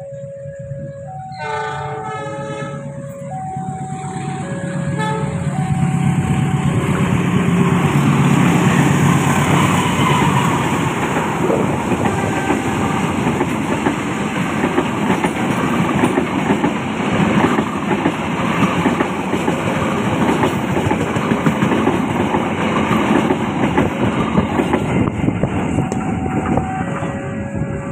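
Level-crossing alarm sounding two alternating tones, and a locomotive horn sounding briefly about two seconds in. Then a diesel-hauled passenger train passes close by, its engine and wheels on the rails growing louder to a peak about eight to ten seconds in and clattering on as the coaches go by. The two-tone crossing alarm comes back near the end.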